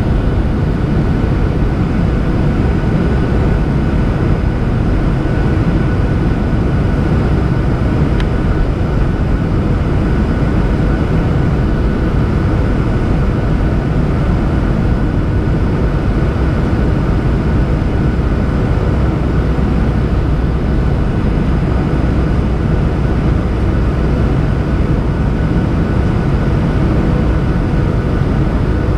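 Steady jet airliner cabin noise in a Boeing 737-800 in cruise-like flight, heard from a seat over the wing: the rumble of the CFM56-7B turbofans and the rush of air past the fuselage, with a couple of faint steady whining tones. A single faint click about eight seconds in.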